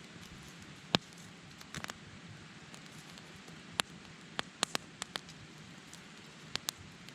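Wood campfire burning with a low steady hiss and irregular sharp crackles and pops, about a dozen of them, the loudest about a second in and several close together around the middle.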